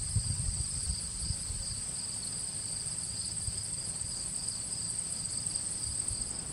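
Insects trilling steadily in a high, finely pulsing chorus at two pitches, over an uneven low rumble.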